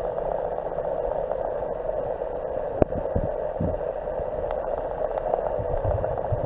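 Steady muffled hiss of recording noise, with a few soft low knocks and one sharp click about three seconds in.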